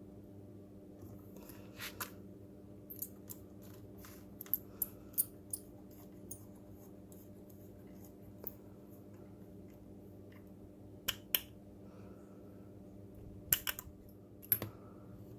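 Irregular sharp clicks and taps from small plastic robot parts being handled and fitted, over a steady low hum.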